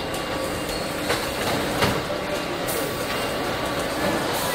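Car assembly plant floor noise: a steady mechanical din with scattered sharp clicks and knocks.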